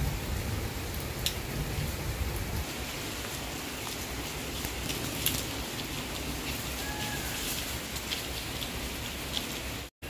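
Steady monsoon rain with scattered sharp drops landing close by. A low thunder rumble dies away about two and a half seconds in.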